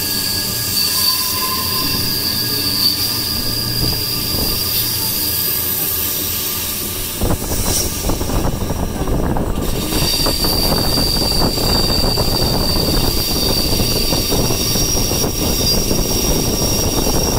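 Bernina Express train running on its rails with its wheels squealing, a steady high squeal over the rumble of the moving train. About seven seconds in the rumble gets louder and the squeal fades for a couple of seconds before returning.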